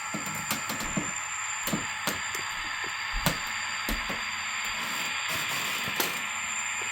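Model train running on a layout, a steady motor whine and hiss with irregular clicks of the wheels over the track. It cuts off suddenly near the end: the locomotive stalling on dirty track.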